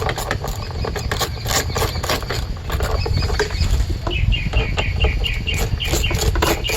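Screws being run into a plastic GMT400 HVAC box with a 7mm socket on an impact swivel: a string of irregular sharp clicks and ticks of the tool and fasteners.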